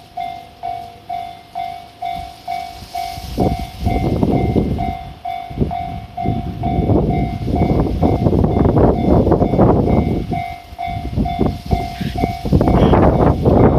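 Japanese level-crossing warning bell ringing about twice a second. From about three seconds in, a limited express train passes through the crossing with a heavy rumble of wheels on rail that rises and falls, loudest near the end.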